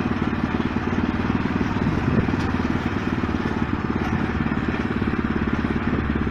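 An engine or motor running steadily with a fast, even pulse.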